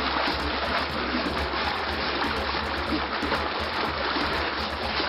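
Steady rush of river water, splashing as water is scooped up and flung by the bucketful.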